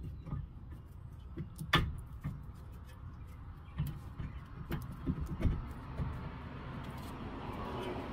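Scattered clicks and knocks of a front brake caliper being handled and fitted back over new pads, the loudest knock nearly two seconds in.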